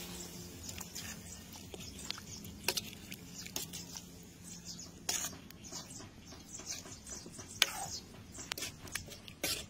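Pot of egg curry simmering, the thick sauce bubbling with irregular soft pops, a few of them louder.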